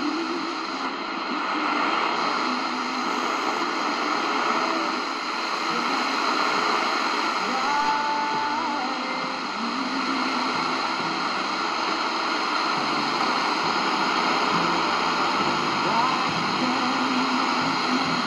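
Shortwave broadcast on 5080 kHz played through the C.Crane CCRadio SW's speaker: weak music under a steady wash of static hiss.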